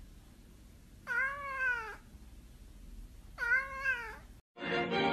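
Domestic cat meowing twice, each meow just under a second long, rising then falling in pitch. The meows are drawn out so that they come across like "momma".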